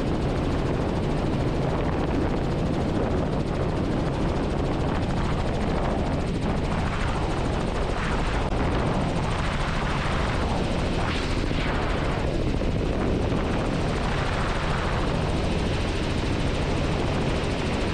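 Robinson R44 helicopter in flight, heard from inside the cockpit: a steady, even noise of engine and rotors.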